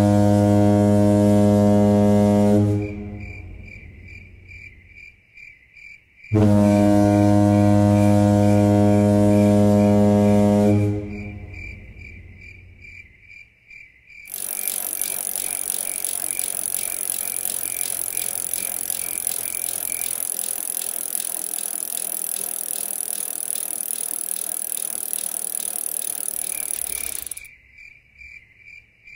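Soundtrack sound design: a low, steady droning tone sounds twice, each time for about four seconds, with a cricket chirping in fast regular pulses between them. About halfway through, a loud, dense hissing buzz takes over for roughly thirteen seconds, then the cricket chirps return near the end.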